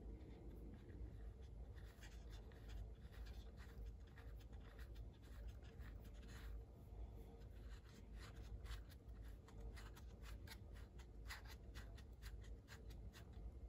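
Faint clicking and scratching of hard plastic as a hand turns the adjustment knob on a Milwaukee green line laser. The clicks come in quick runs that grow denser in the second half.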